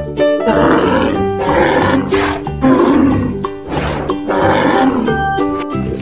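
Cattle calling in a string of short, rough, grunting lows, over background music.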